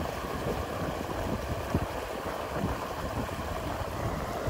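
Shallow river rapids rushing steadily over rocks, with irregular gusts of wind buffeting the microphone.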